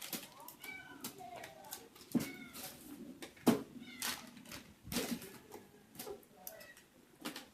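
A cat meowing several times, short rising-and-falling calls, among a few sharp knocks and thumps.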